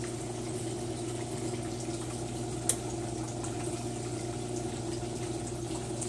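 Brastemp 6th Sense top-load washing machine's drain pump running with a steady hum over the sound of water, draining the tub. A single short click about two and a half seconds in.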